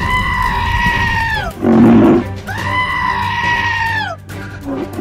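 Cartoon creature's distress cry sound effect: two long, high, bleating wails, each rising at the start and falling away at the end, with a short, louder low burst between them, over background music.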